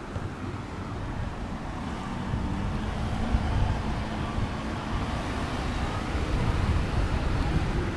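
Road traffic going by: a steady low rumble of vehicles that swells twice as cars pass.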